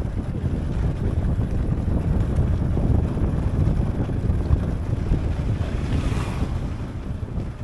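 Wind buffeting the microphone: a loud, low, unpitched rumble that begins to fade near the end.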